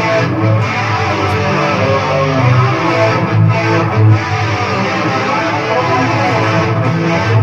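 Playback of a home multitrack recording: two layered guitar tracks playing together at a steady, loud level.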